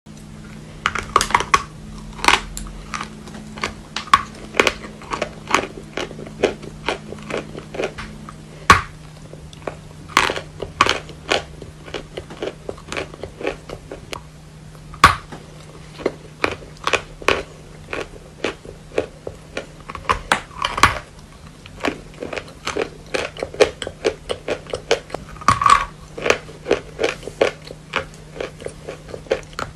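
A person biting and chewing lumps of natural chalk close to the microphone: a run of sharp, irregular crunches and cracks, with a few much louder bites standing out, over a faint steady hum.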